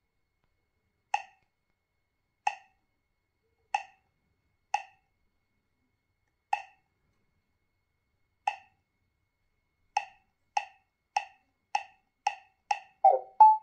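A touchscreen GPS navigator's short key-click tones as its on-screen buttons are pressed: a dozen single clicks, spaced out at first and coming about twice a second from ten seconds in, with a brief tone near the end.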